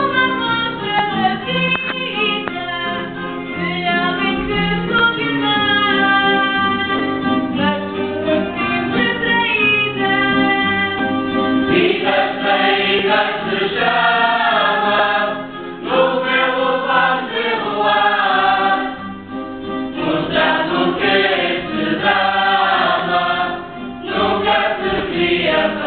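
Sung chorus of a Terceira carnival sword-dance troupe, men and women singing together in phrases with short breaks between them, over instrumental accompaniment.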